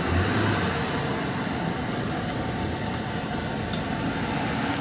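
Steady vehicle engine hum with hiss, a little stronger in the first second.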